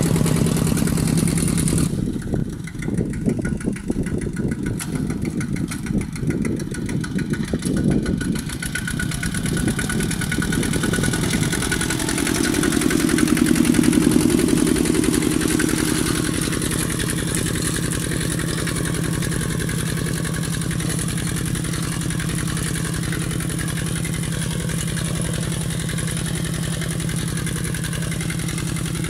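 Kubota walking tractor's single-cylinder diesel engine running steadily under load as it pulls a disc ridger through dry soil. It turns uneven for several seconds near the start and swells louder around the middle.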